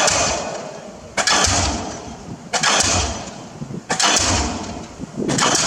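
Arcon DD-55 diesel pile hammer running, driving a precast concrete pile: a sharp bang about every 1.3 seconds, five blows in all, each followed by a fading exhaust hiss and a low thud.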